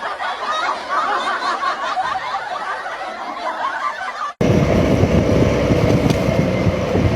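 People snickering and chuckling for about four seconds, then a sudden cut to a louder, steady vehicle engine rumble.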